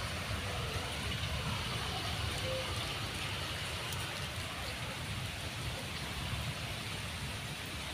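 Steady rain falling on wet pavement, an even hiss, with a low rumble underneath.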